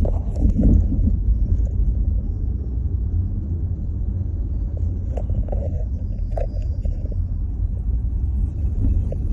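Steady low rumble of a vehicle moving through town traffic, with a few faint short knocks.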